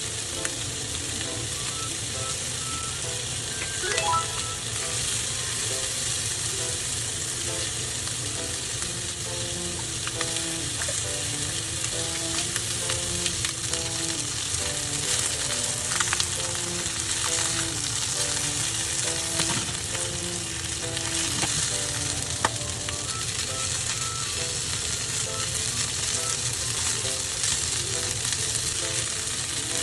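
Food frying and sizzling steadily in a pan, with a few sharp clicks of a utensil against it. A simple background melody plays under it.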